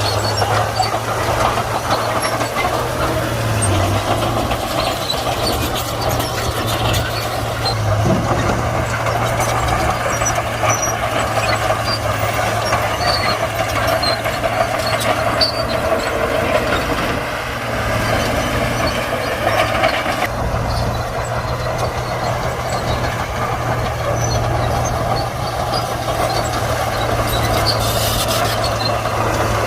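Komatsu D41P bulldozer's diesel engine running steadily while the dozer works, a constant low drone with little change in pitch.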